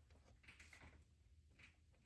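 Near silence: a faint low hum with a few soft handling noises as parts are worked by hand.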